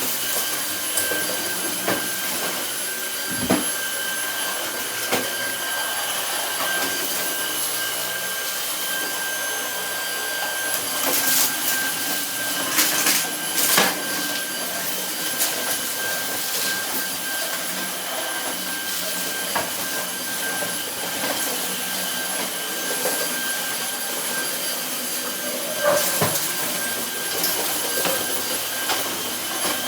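Cordless Dyson stick vacuum running steadily with a high motor whine, with scattered clicks and rattles, a cluster of them about halfway through.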